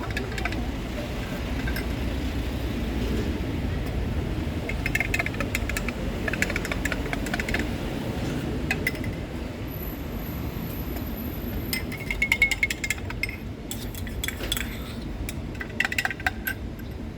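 Irregular clinking and tapping of utensils and cups while iced drinks are made, over a steady low background rumble.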